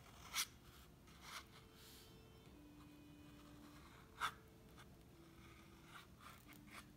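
Fountain pen nib scratching across sketchbook paper in short drawing strokes, with two louder scratches about half a second and four seconds in.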